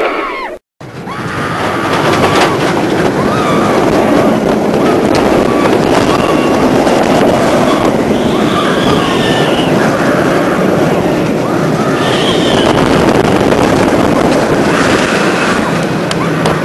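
Wind rushing over the microphone together with the rumble of the Batman and Robin: The Chiller coaster train running at speed on its track, loud and steady. The sound cuts out for a moment just after the start. A few short high-pitched cries rise over it about eight and twelve seconds in.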